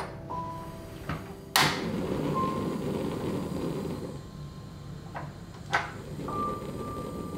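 Gas stove ignition knob turned with sharp clicks; after a loud click about one and a half seconds in, the burner lights and a steady low rush of gas flame follows. Another click about six seconds in.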